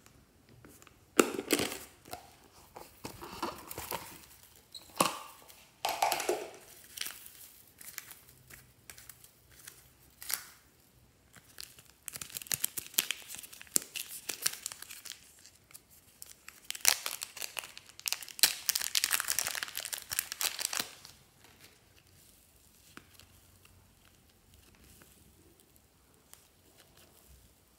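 Plastic packaging being handled: a filled zip-lock plastic bag crinkles and rustles as it is squeezed and worked open, in dense bursts with sharp clicks between them. Near the end it gives way to much fainter soft handling.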